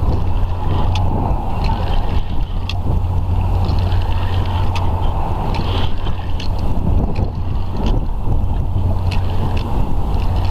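Strong wind buffeting the microphone: a steady low rumble with gusty noise over it and a few faint clicks.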